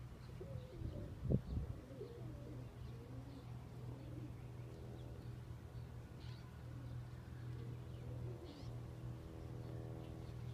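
Pigeons cooing, with faint chirps of small birds over a steady low hum; a steady droning tone joins about six seconds in.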